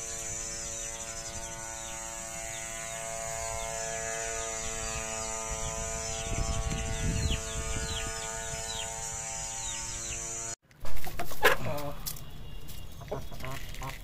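A steady machine hum made of many even tones, with small birds chirping quickly and high above it. About ten and a half seconds in it cuts off abruptly, and a few loud, sharp sounds follow.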